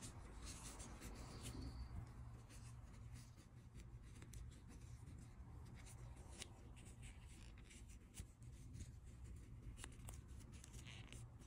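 Faint handling sounds: fingers rubbing and turning crocheted acrylic-looking yarn, with scattered small clicks and scratches over a low steady hum.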